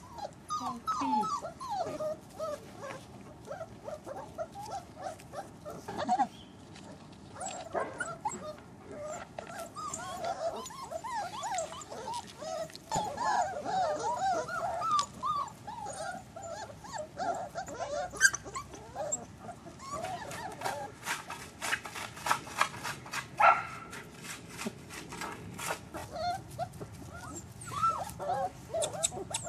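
Four-week-old Fila Brasileiro puppies whimpering and yipping: many short, high squeals that rise and fall, overlapping one another. A quick run of sharp clicks comes in over the second half.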